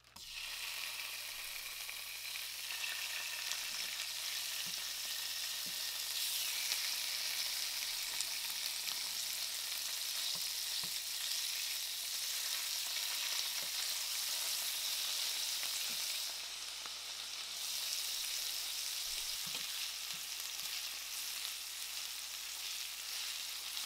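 Marinated chicken breasts frying in hot olive oil in a nonstick pan: a steady sizzling hiss, with now and then a light tap of a wooden spatula against the pan.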